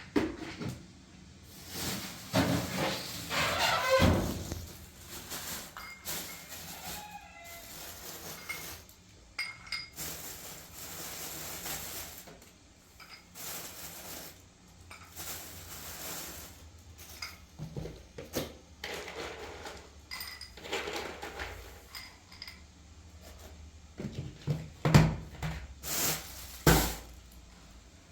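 Intermittent clinks, knocks and clatter of hard objects being handled, with a few louder knocks near the end.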